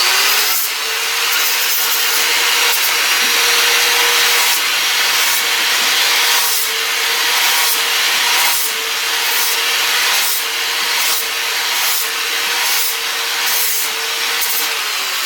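Angle grinder with a flap disc sanding steel bright, running with a steady whine under the rasp of the disc on the metal, the rasp swelling with each pass. Near the end it is switched off and the whine falls as the disc spins down.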